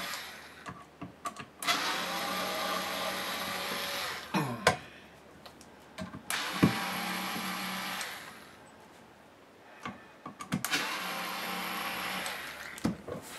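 Electric screwdriver whirring in three spells of about two seconds each as it backs screws out of an inverter's aluminium case, with small clicks and knocks in between.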